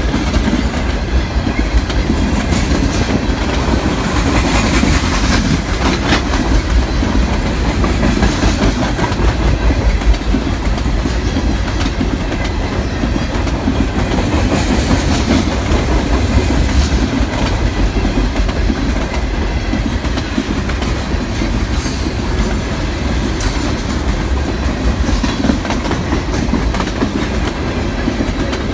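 CSX intermodal freight train rolling past: a steady low rumble of the cars' wheels on the rails, with a couple of brief sharp high-pitched sounds about two-thirds of the way through.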